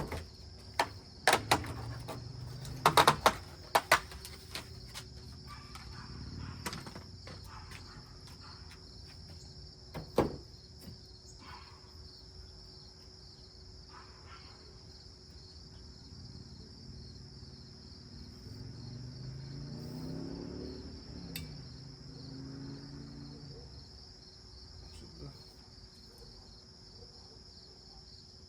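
Sharp clicks and knocks from windshield wiper blades being unclipped and fitted, mostly in the first few seconds and once more about ten seconds in, over a steady chorus of crickets.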